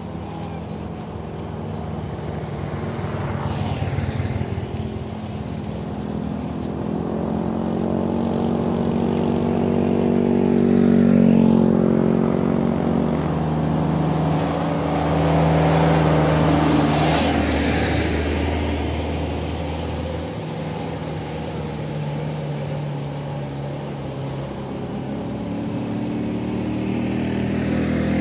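Motor vehicles passing along the road, their engines swelling and fading as each goes by, loudest about eleven and sixteen seconds in. Near the end a truck approaches and its engine rises again.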